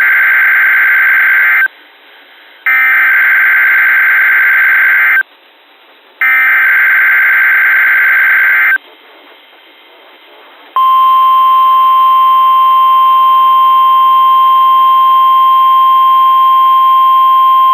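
NOAA Weather Radio emergency alert signal: the SAME digital header as three harsh bursts of data tones, each about two and a half seconds long with a second's pause between, then, about eleven seconds in, the steady single-pitch warning alarm tone. It introduces a Severe Thunderstorm Watch broadcast.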